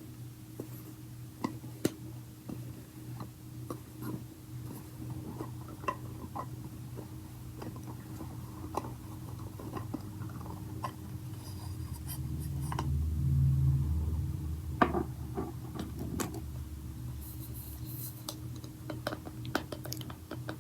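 Hands handling the plastic container and packaging of a slime kit: scattered light taps, clicks and scraping, with a louder low rubbing stretch a little past halfway. A steady low hum runs beneath.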